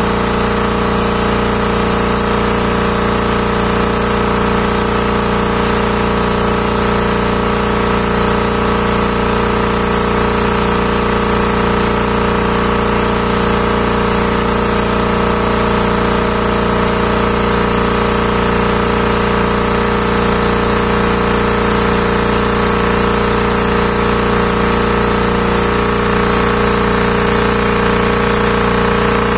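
Hatlapa W 220 reciprocating air compressor running steadily under test: a constant mechanical hum with a fast, even beat.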